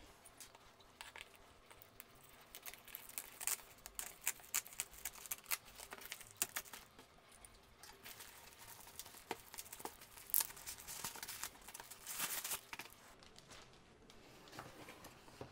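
Plastic shrink wrap being slit, torn and peeled off a cardboard box: irregular crinkling and crackling, with louder rips about three and a half seconds in and again near ten and twelve seconds.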